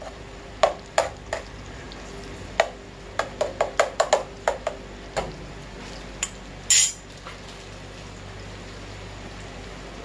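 A long metal spoon stirring in an aluminium pot, knocking and scraping against its side in a run of sharp clicks through the first half, with a short hiss about seven seconds in. Underneath, the steady low sizzle of pork chorizo frying in lard.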